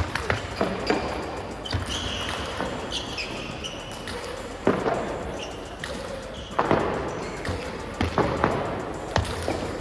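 Table tennis balls being struck by bats and bouncing on tables during practice rallies at several tables: an irregular run of sharp clicks.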